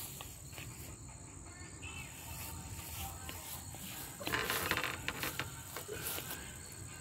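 Steady high-pitched insect chirring, typical of crickets, with a short burst of noise and clicks about four seconds in.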